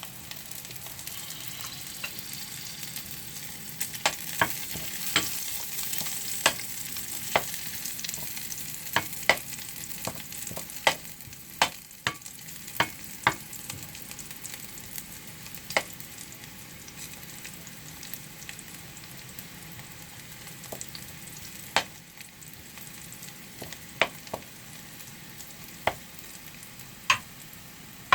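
Garlic and browned pork chop pieces sizzling in a frying pan, a steady hiss. Sharp clacks of a utensil knocking against the pan come at irregular intervals as the food is stirred, most often in the first half.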